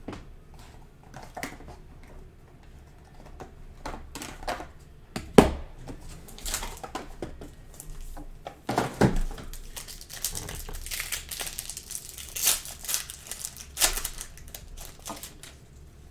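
A trading-card box being unwrapped and opened by hand: plastic wrapper crinkling and tearing, with clicks and knocks of cardboard and cards being handled. One sharp knock comes about five seconds in, and the crinkling is busiest from about ten to fourteen seconds in.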